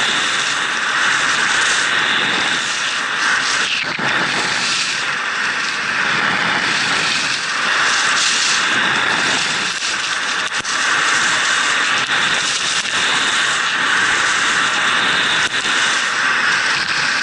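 Rushing wind on the camera and ski edges scraping over packed snow on a fast downhill run. A steady hiss that swells and eases every couple of seconds with the turns.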